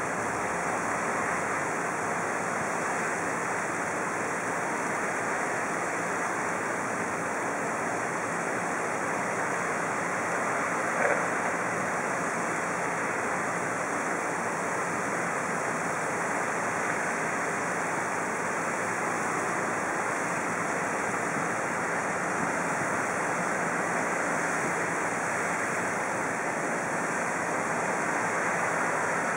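Kasco Marine floating pond fountain spraying a tall central jet, its water falling back onto the pond in a steady splashing rush. One brief click sounds about eleven seconds in.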